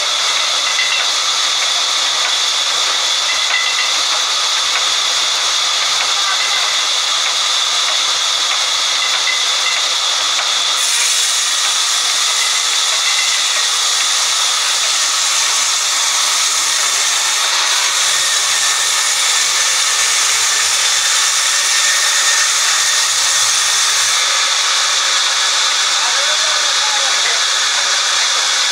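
Sawmill band saw running and cutting lengthwise through a long mahogany log, a loud, steady hiss that grows brighter about eleven seconds in.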